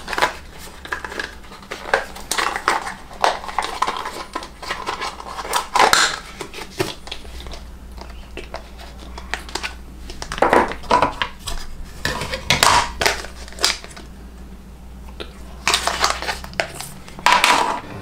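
Clicks, clatter and rustling of a clear plastic thermal-paste kit case being opened and its syringe and small tubes handled. The sounds come in irregular clusters, loudest around six seconds in, again between about ten and thirteen seconds, and near the end.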